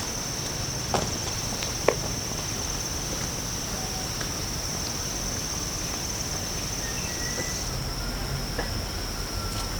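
Insects droning steadily in one unbroken high-pitched note, with two sharp clicks about one and two seconds in.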